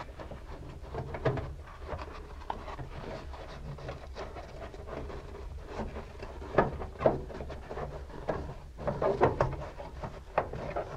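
Hands rustling and rubbing against a car headliner and fumbling with parts behind it, with irregular small knocks and scrapes, busier a little past halfway and again near the end, over a steady low hum.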